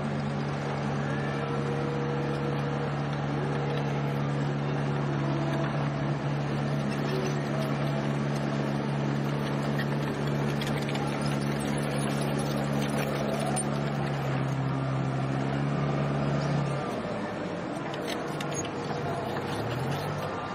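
An engine running steadily at one pitch, cutting off suddenly about 17 seconds in; near the end a second engine note rises in pitch.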